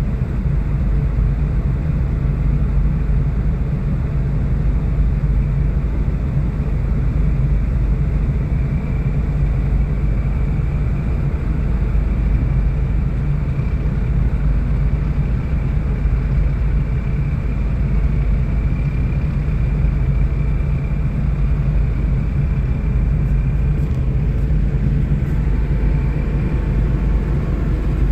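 Steady low engine rumble of a container ship heard from its deck while under way, with a faint high whine joining about eight seconds in and fading near the end.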